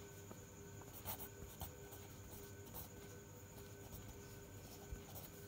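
Pen scratching on paper in a few short, faint strokes as letters and digits are written by hand.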